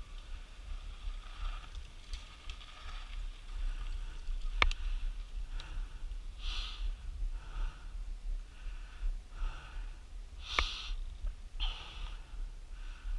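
A person breathing hard, roughly one breath a second, over a low wind rumble on the microphone. Two sharp clicks sound, about six seconds apart.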